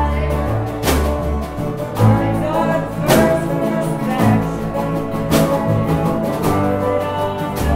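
Band music with acoustic guitar and a steady beat about once a second.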